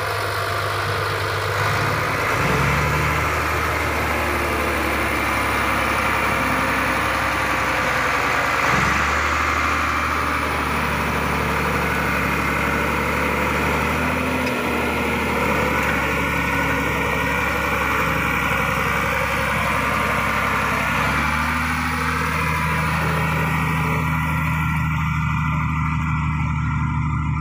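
BD65-1 crawler bulldozer's diesel engine running steadily while the dozer pushes garbage with its blade. The engine note shifts to a new pitch a few times, about 2.5, 9 and 21 seconds in.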